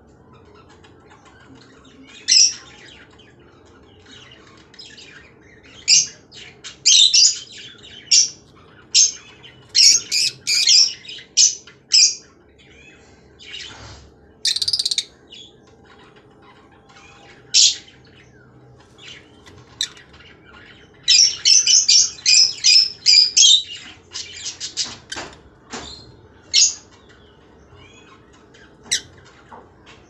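Rosy-faced lovebirds giving sharp, high-pitched squawking calls in scattered bursts, with a fast chattering run of calls about two-thirds of the way through.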